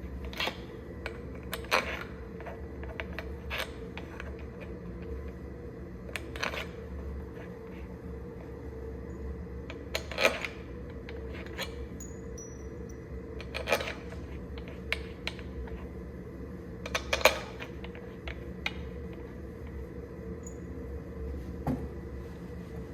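Metal tools and engine parts clinking and clanking as they are handled, one sharp clink every few seconds, over a steady machine hum.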